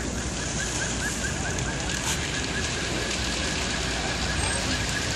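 Large building fire burning with a steady, dense crackling. A faint, fast, high-pitched chirp repeats about five times a second underneath.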